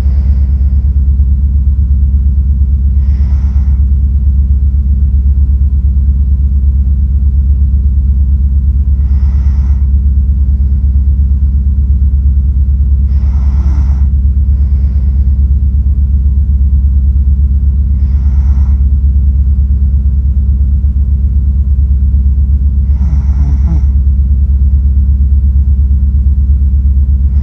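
A sleeping person's slow breathing, a short hissy breath about every four to six seconds, over a loud steady low rumble.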